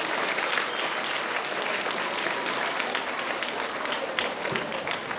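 An audience applauding: many hands clapping together without a break.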